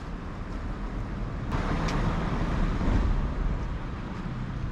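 Street traffic noise: a steady low rumble, with a vehicle passing out of sight that swells about a second and a half in and then fades.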